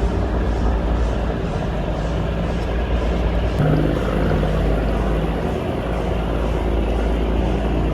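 Ferry's diesel engine running with a steady low rumble as the boat comes in to the landing.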